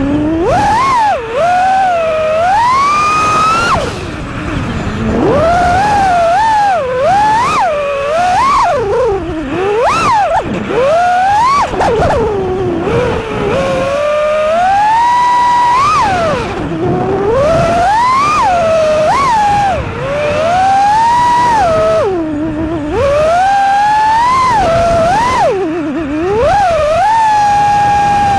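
FPV freestyle quadcopter's brushless motors whining loudly, the pitch sweeping up and down constantly as the throttle is punched and chopped through the manoeuvres, with a few brief drops where the throttle is cut, heard from the drone's on-board camera.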